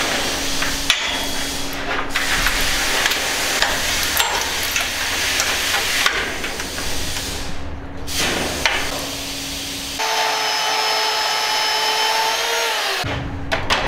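Portable band saw cutting through steel pipe clamped in a chain pipe vise: a steady rasping noise that runs on, with a steadier, more tonal whine for a few seconds near the end.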